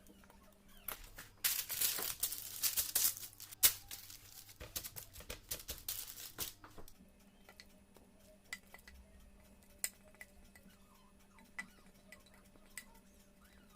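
Kitchen food-preparation handling sounds: a few seconds of busy rustling and clattering with sharp clicks of utensils or dishes, then only scattered light taps.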